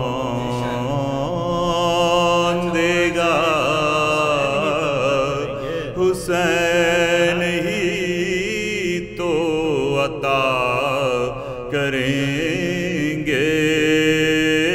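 A man singing an Urdu manqabat, a devotional poem in praise of Imam Hussain, in long, drawn-out, ornamented phrases that waver in pitch, over a steady low drone.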